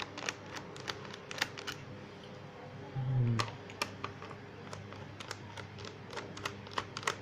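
Irregular light clicks of a screwdriver turning out the screws of a laptop's plastic bottom cover, with a short low sound about three seconds in.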